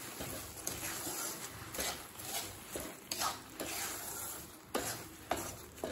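Spatula stirring and scraping a thick mash of ghee-roasted bread and freshly added sugar around a kadai, in irregular strokes about once or twice a second, with a light sizzle under it; the sugar is being stirred in to melt.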